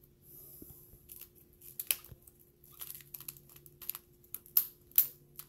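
Clear plastic coin-album pocket pages crinkling and crackling as they are handled and turned, in a run of sharp irregular crackles, the loudest near the end.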